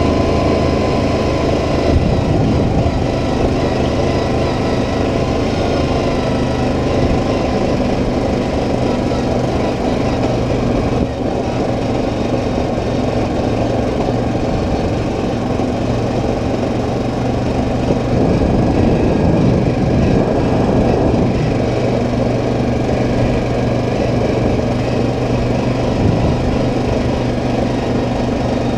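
ATV engine running at a steady low cruising speed as the quad rolls along a gravel trail.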